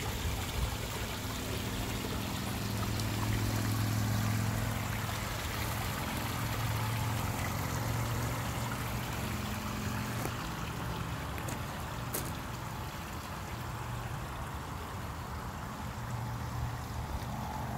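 Water trickling and splashing over the stones of a garden pond's stream, over a steady low hum; the water grows fainter after about ten seconds.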